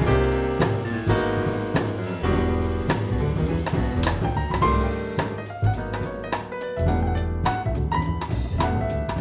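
Live jazz piano with drum kit and bass, the piano playing a busy line over the rhythm section, with many sharp drum and cymbal strokes. Recorded off an FM radio broadcast onto cassette tape.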